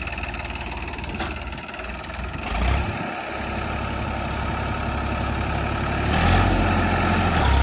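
New Holland 3032 Plus tractor's three-cylinder diesel engine working under load as it pulls a nine-tine tiller through heavy, wet soil, growing louder about two and a half seconds in and again near the end.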